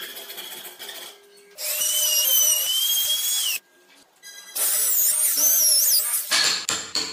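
Power tools whining in two bursts of about two seconds each, the second a cordless drill boring into a block of wood, its whine wavering up and down in pitch. Quieter scraping of hand tools comes between the bursts, and rapid clicks follow near the end.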